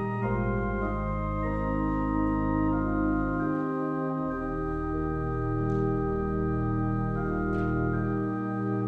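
Church organ playing slow sustained chords over deep held bass notes, the harmony moving every second or so.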